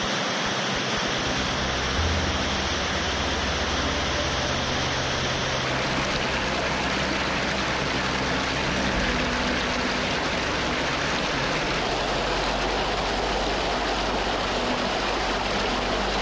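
Rushing water of a woodland creek pouring over rocks and small falls, a steady, even rush with a slight change in tone about six seconds in.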